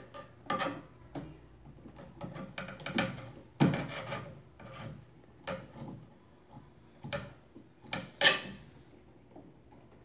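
Irregular clicks, scrapes and rubs of wiring being handled as spade connectors are pushed onto the primary terminals of a microwave oven's high-voltage transformer. Two sharper knocks come about three and a half seconds in and about eight seconds in.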